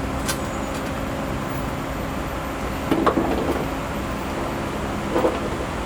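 A few knocks and rattles of car interior parts being handled: a click just after the start, a cluster about three seconds in and another near the end, over a steady background hum.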